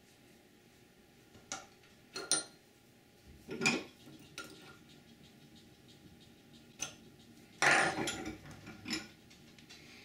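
Scattered light metallic clinks and taps of steel leader wire and a steel nail set being handled in a bench vise while an eye is bent into the wire, with a louder clatter about eight seconds in.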